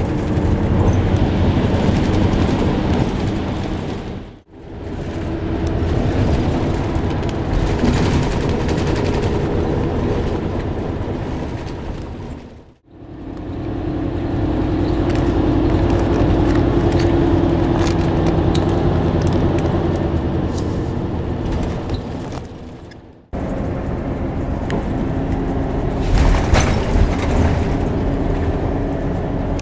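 Loud, steady rumble of a moving vehicle heard from inside the cabin: a low engine drone with road noise. It stops abruptly about 4, 13 and 23 seconds in, where separate recordings are cut together.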